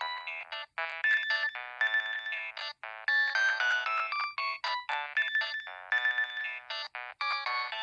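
Nokia 2112 mobile phone playing one of its preloaded ringtones: a quick melody of short electronic notes with a few brief breaks.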